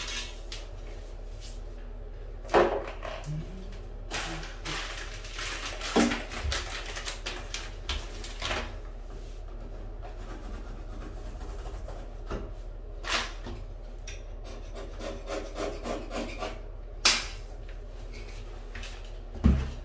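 Rotten wooden door-frame molding being worked by hand: irregular scraping and rubbing of wood, broken by several sharp knocks and cracks spread through the stretch.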